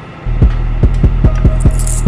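Loud, bass-heavy music with a quick thumping beat of about five thumps a second. It cuts in suddenly a moment in and stops just as suddenly.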